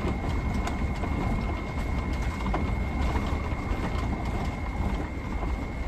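Sprinter camper van rolling slowly along a dirt and gravel road, heard from inside the cab: a steady low road rumble with scattered small clicks and rattles, and a thin steady high tone running underneath.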